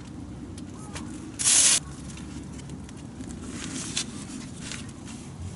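Small rubbing and handling noises over a steady low rumble, with one short, loud hissing scrape about a second and a half in.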